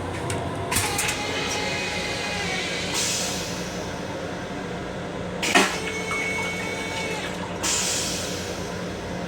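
Railcar restroom toilet flushing: a rush of water with a sharp knock partway through, over a steady hum.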